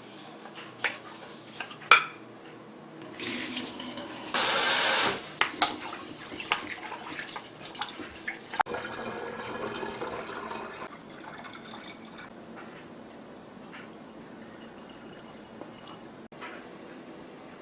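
Water at a kitchen sink: small clicks and knocks, a brief loud gush of water about four seconds in, then splashing and trickling with light clinks that die down after about eleven seconds.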